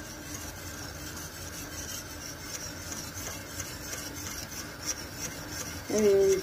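Wire whisk scraping around a metal pot of cooking milk pudding mixture in steady, rhythmic strokes, stirred continuously as it heats and begins to thicken. A brief voice near the end.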